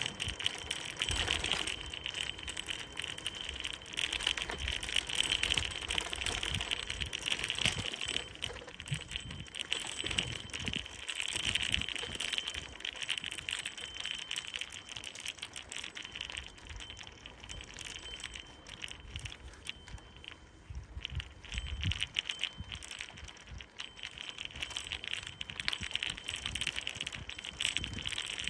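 Bicycle rolling over a rough, cracked, grit-strewn concrete farm track: tyres crunching on loose grit and the bike rattling, with dense rapid clicks and occasional low thuds from bumps. It eases a little about two-thirds of the way through.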